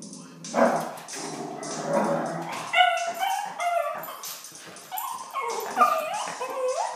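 Small dog whining and yipping in high, sliding cries, with the sharpest yelps about three seconds in and again near the end. The dog is agitated by a song playing.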